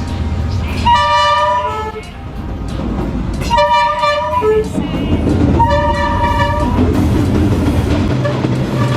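Train horn sounding three long blasts, while the low rumble of the approaching train grows from about halfway through.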